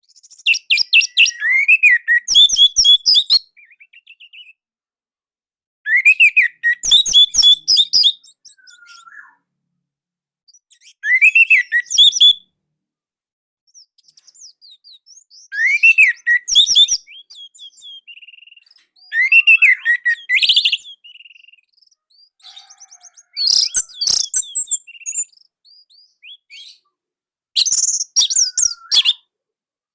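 Orange-headed thrush (anis merah) singing loud, tight phrases of rapid, varied high notes, about seven of them, each a couple of seconds long, with pauses between.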